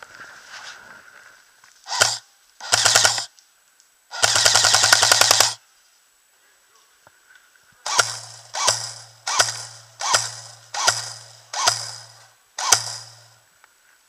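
Classic Army G36C electric airsoft rifle firing full-auto bursts, its motor and gearbox humming under the rapid clatter of each burst. A short burst about two seconds in, another just after, then one long burst of about a second and a half; after a pause, seven short bursts in quick succession.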